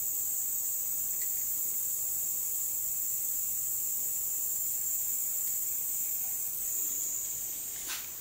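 Steady high hiss while a soldering iron works a wire onto a transformer's terminal lug, easing off about seven seconds in.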